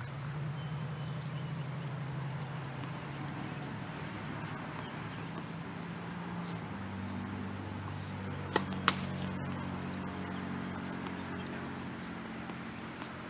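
A steady low hum, like a motor running nearby, that shifts in pitch about halfway through. Two sharp pops a third of a second apart, about two-thirds of the way in, fit a tennis ball struck or bounced on the hard court.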